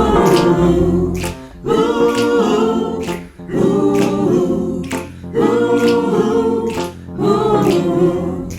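A cappella vocal ensemble singing sustained gospel-style chords without words, in repeated phrases about a second and a half long, with light percussive snaps on the beat.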